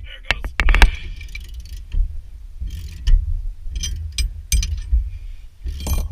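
Ratchet wrench clicking in short bursts with pauses between them, working loose the bolts that hold the wheel hub.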